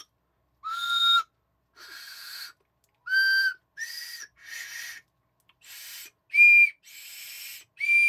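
Plastic multi-tube toy train whistle with candy pellets in its tubes, blown one tube at a time in about nine short toots, the notes stepping up in pitch. Several tubes give only a breathy hiss with no clear note: duds.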